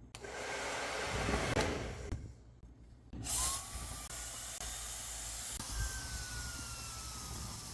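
A hair dryer blowing air. It runs for about two seconds and stops, then starts again about three seconds in and keeps running. A thin motor whine rises as it spins up, then slowly drops in pitch.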